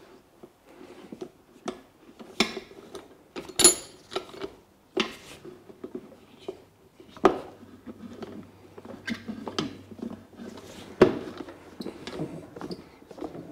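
Steel tire levers clinking and scraping against a motorcycle's spoked wheel rim as the tire bead is pried back on, in irregular metallic clicks and knocks. The sharpest come about three and a half, seven and eleven seconds in.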